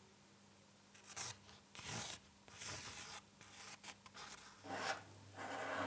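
A pencil sketching on paper: a string of short strokes at irregular intervals, faint.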